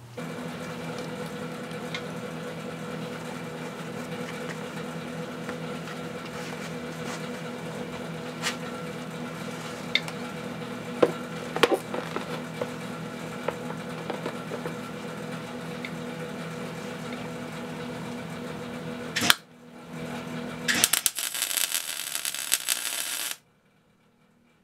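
A steady electrical hum with a few scattered clicks and knocks, then a loud click. About 21 seconds in, a welding arc crackles and hisses for about two seconds as a new nut is tacked onto the steel frame, ending abruptly.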